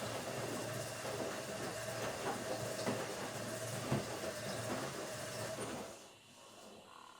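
Automatic washing machine running: a motor hum with a steady whine over a noisy churn and scattered knocks. It stops abruptly about six seconds in, leaving a much quieter background.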